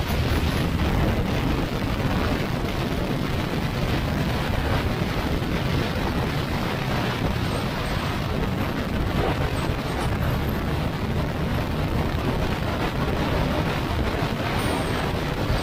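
Yamaha NMAX single-cylinder scooter running steadily at cruising speed, heard under rushing wind on the microphone and road noise.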